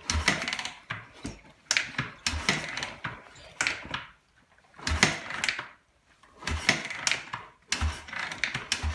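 Honda XR250R single-cylinder four-stroke dirt bike being kick-started over and over, about every second and a half: each kick gives a thump and a short clattering turn of the engine that never fires. The bike is failing to start.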